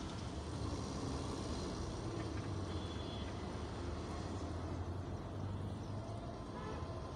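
Steady low rumble of a vehicle.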